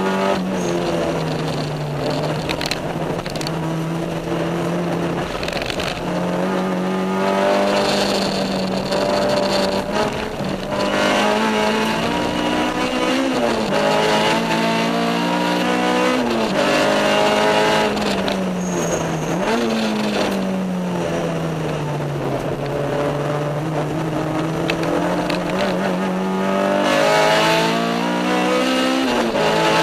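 Honda K20 four-cylinder engine in a track-prepared Civic EG with an aftermarket header and cat-back exhaust, heard from inside the cabin at racing speed. The engine note falls away and climbs again several times through braking and gear changes, with a few sharp jumps in pitch around the middle.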